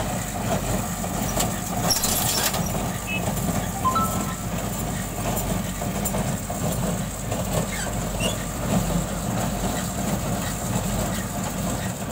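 Sonalika tractor driving an MF 1840 square baler: the engine runs steadily under the baler's rhythmic mechanical clatter, with a thin high whine and an occasional sharp knock, such as one about two seconds in.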